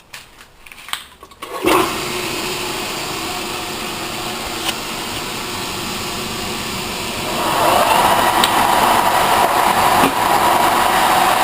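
Metal lathe switched on about two seconds in and running steadily. About seven seconds in it grows louder and harsher as the high-speed steel bit begins turning down a welded-up steel bushing.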